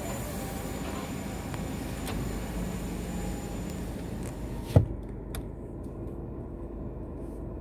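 Car running at low speed, heard from inside the cabin as a steady low rumble. A single sharp knock comes just under five seconds in, after which the sound turns duller.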